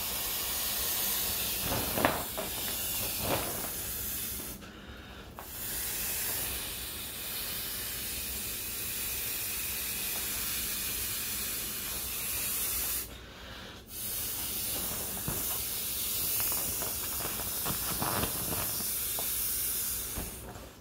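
Breath blown into the valve of an inflatable vinyl swim ring: a long, steady airy hiss, broken twice by short pauses for breath near 5 and 13 seconds. The plastic crinkles a couple of times early on.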